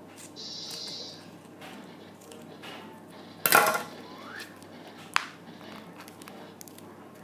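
Pair of metal scissors set down with a loud clatter on a glass tabletop about halfway through, followed by a single sharp click about a second and a half later. A short hiss comes near the start, and light handling of paper follows.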